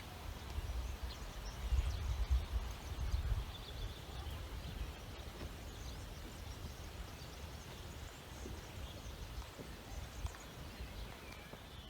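Low rumbling snore of a sleeping horse, loudest about two to three seconds in and then weaker.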